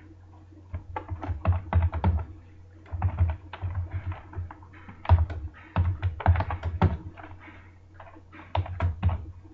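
Computer keyboard typing in several quick runs of keystrokes with short pauses between them, over a faint steady low hum.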